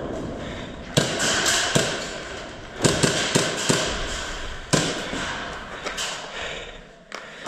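Airsoft guns firing in a large indoor hall: about ten single sharp cracks at irregular intervals, each with a short echo, over a steady rustling background.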